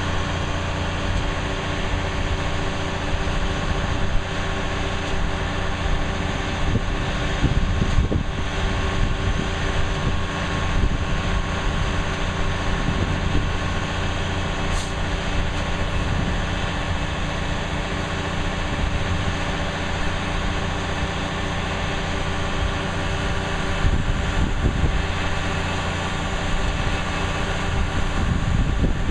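Large engine of a boat-launching crane running steadily: a continuous low drone with a steady pitch.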